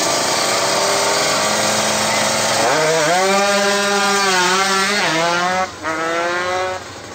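Kawasaki Ninja motorcycle engine screaming at high revs: a loud, rasping whine that rises about three seconds in and holds, dips briefly and climbs again about five seconds in, then fades out near the end.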